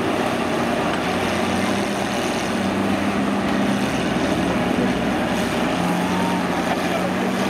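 Engines of several old John Deere combines running together, a steady, unbroken drone with no crashes.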